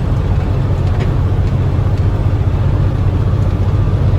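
Semi truck's diesel engine running, a steady low drone with road noise.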